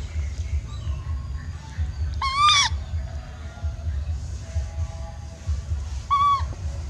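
A baby monkey crying, which its owner puts down to missing its mother and needing warmth. It gives two high, clear cries that rise slightly and then drop: a longer one about two seconds in and a shorter one near the end, over a low steady rumble.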